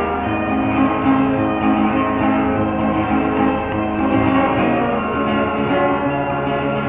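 Music with plucked string instruments playing steadily, accompanying a stage dance.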